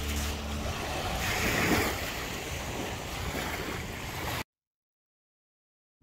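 Small waves washing on a sandy shore, with wind on the microphone, cutting off abruptly into silence about four and a half seconds in.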